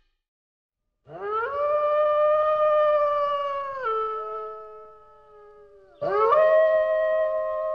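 Wolf howling: two long howls, each swooping up at the start, holding one pitch, then dropping a step lower as it fades.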